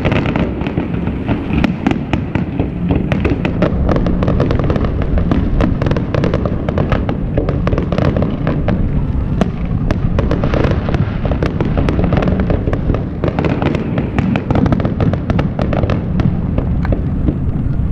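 Aerial fireworks display: a dense, unbroken stream of bangs, pops and crackles from bursting shells over a steady low rumble.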